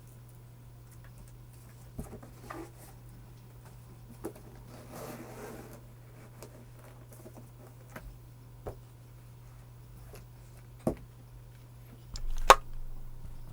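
Scattered single clicks and knocks from a mechanical keyboard being handled or tapped now and then, not continuous typing, over a steady low hum. The loudest sharp knock comes near the end.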